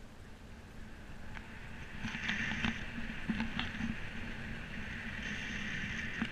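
Wind rushing over a GoPro's microphone during a paraglider's descent, growing louder about two seconds in, with a few sharp clicks scattered through it.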